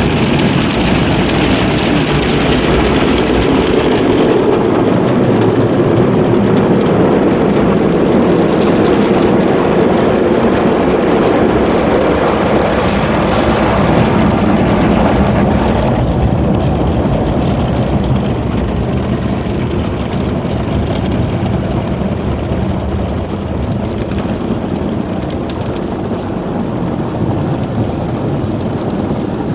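Water jets of a Motor City Wash Works conveyor car wash spraying onto a car, heard from inside the cabin as a loud, steady rush of water drumming on the windows and body. The rush eases somewhat about halfway through.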